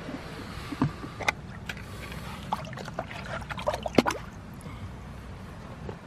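Water sloshing and splashing in a plastic basin as an eel moves in it: a run of short, sharp splashes and knocks from about one to four seconds in, the loudest near the end of the run. Under it is a steady low background noise.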